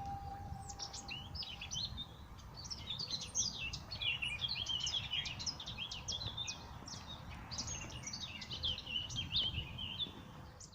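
Small songbirds singing, a busy run of short, quick chirping notes, over a low steady background rumble.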